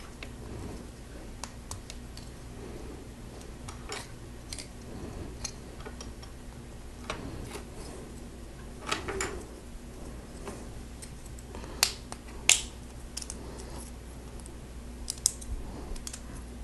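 Plastic Lego bricks clicking as they are handled and pressed together: irregular small clicks, with a couple of sharper snaps about two-thirds of the way through.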